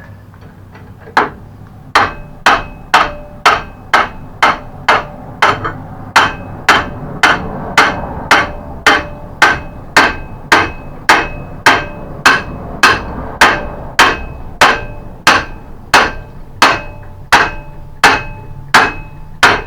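Hammer blows on metal, steady at about two a second, each with a short ringing tone: driving a rusted, seized hinge pin out of a mobility scooter's hinge.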